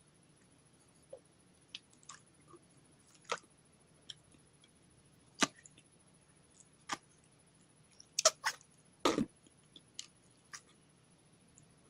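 Putty slime being worked by hand, giving irregular sticky clicks and pops. The loudest come in a quick cluster about two-thirds of the way through.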